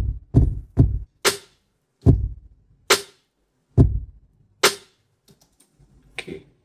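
A programmed trap drum loop from Logic Pro's Drum Machine Designer playing at 140 BPM: three quick kick drum hits, then kick and snare samples alternating. It stops about five seconds in, leaving only a few faint clicks.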